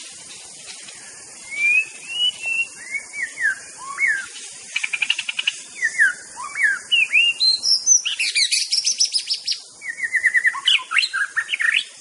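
White-rumped shama singing: clear whistled phrases sliding up and down, broken by quick rattling trills about five seconds in and again around eight seconds, and a run of fast repeated notes near the end. A steady high hiss lies underneath.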